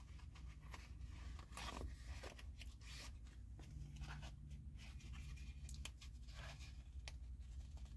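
Faint handling noise of a folded multitool being worked into its belt case: short scattered scrapes, rustles and light clicks.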